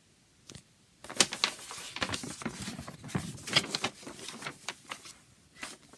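Large glossy fold-out paper poster rustling and crackling as it is handled and turned over: one short crackle, then about four seconds of dense crinkling, easing off near the end.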